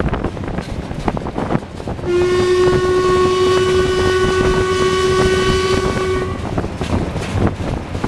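Steam whistle of Sri Lanka Railways steam locomotive B1A No. 251 blown in one long steady blast of about four seconds, starting about two seconds in. It sounds over the rattle and clatter of the running train.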